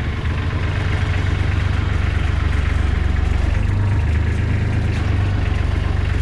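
Kubota B1700HD's three-cylinder diesel engine running steadily, with the PTO engaged and spinning. The engine note shifts slightly about four seconds in.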